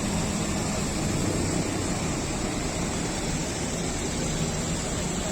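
Lorry running on the road: steady engine hum and road noise, with no horn sounding.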